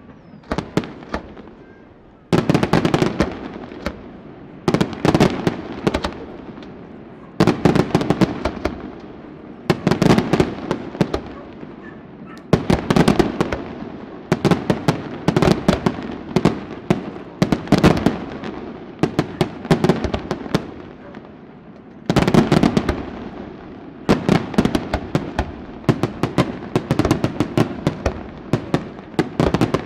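Aerial firework shells bursting during a display: dense runs of sharp bangs, with a fresh cluster of bangs about every two and a half seconds.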